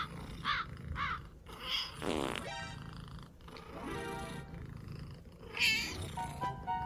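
A domestic cat meowing several times in short calls, with added music and comic sound effects, including one sound falling in pitch about two seconds in.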